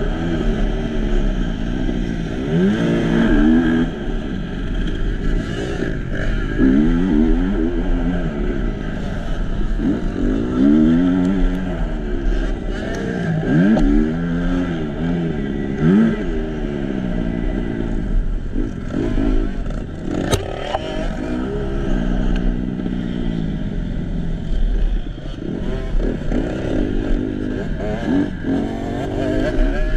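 Motocross bike engine racing, revving up and falling back over and over through the gears and corners. There is a single sharp knock about twenty seconds in.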